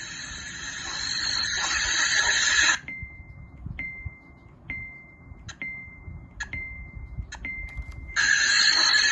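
Qualitell white noise speaker playing its nature-sound presets. A dense, high chirring chorus, taken for some kind of insect, plays for about three seconds. Then a thin steady tone repeats about once a second, each with a click at its start. The chorus comes back near the end.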